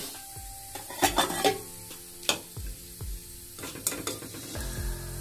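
Hot mustard oil sizzling around bay leaves in a steel kadai, with a few sharp clinks of a metal spoon against the pan.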